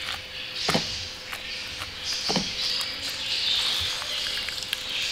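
Fork scraping and mashing the flesh of a halved grapefruit to squeeze out its juice by hand: wet scratching with several sharp little clicks, then the fruit squeezed over a bowl.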